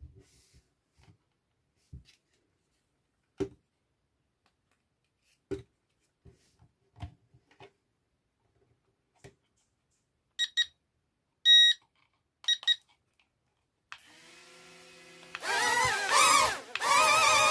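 Light clicks and knocks of plastic being handled, then several loud electronic beeps about ten seconds in. A low hum follows, and near the end the toy RC airplane's electronic sound effects start, loud with wavering tones.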